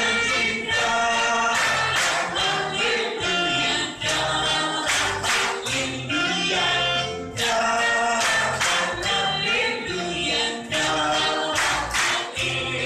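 Live worship song through a PA: amplified singing with guitar over a steady beat.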